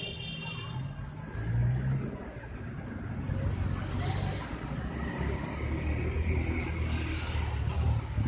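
Low, steady rumble of a running engine.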